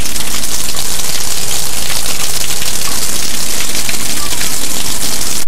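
Heavy rain pouring onto a lawn and concrete patio: a loud, dense, steady hiss that cuts off suddenly at the end.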